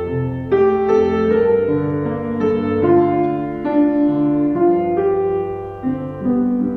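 Slow solo keyboard music, played as a quiet interlude in a worship service, with held chords changing about every second.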